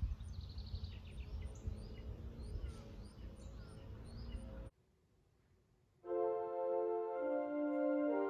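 Outdoor ambience of a low rumble with birds chirping and a steady high ticking, cut off about four and a half seconds in. After a second of silence, a church organ begins playing sustained chords.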